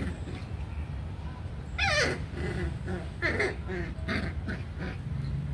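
Puppy whimpering: a high whine that slides down in pitch about two seconds in, followed by several shorter whimpers.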